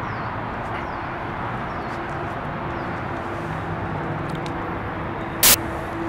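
Steady outdoor background noise with a faint low hum, a few faint high chirps, and one short sharp knock about five and a half seconds in.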